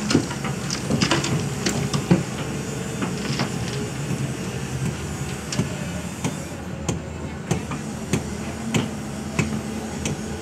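Hyundai crawler excavator's diesel engine running steadily under load, with irregular sharp knocks and clanks as the bucket dumps soil and rock into a dump truck and swings back to dig; the loudest knock comes about two seconds in.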